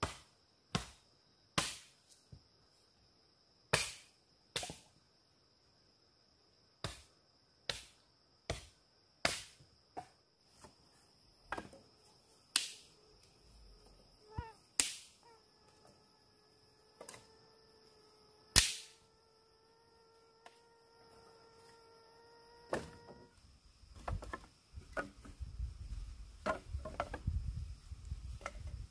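Sharp strikes of a hand tool on bamboo, about twenty of them at an uneven pace of roughly one a second, each with a short ring. Near the end they give way to rustling and handling noise.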